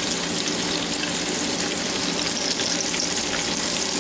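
Hot grease sizzling and crackling steadily in a pot on the stove, deep-frying.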